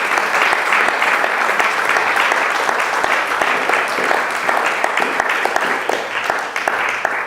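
Congregation applauding, a dense patter of many hands clapping that fades toward the end.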